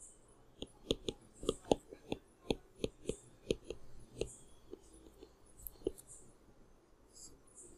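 Stylus tapping and sliding on a tablet screen during handwriting: a quick, irregular run of light taps that thins out about six seconds in.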